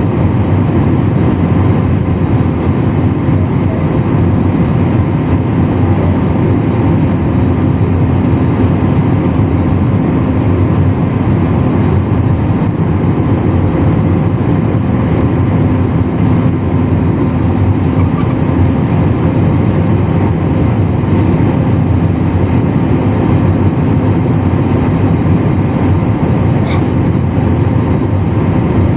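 Airliner cabin noise: a steady, loud rumble of the jet engines and airflow heard from inside the passenger cabin, with faint steady tones over it.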